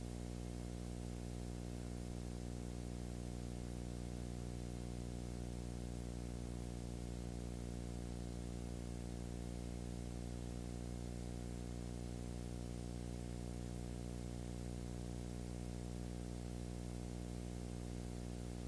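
Steady electrical hum with many evenly spaced overtones, over a constant layer of hiss; nothing else is heard.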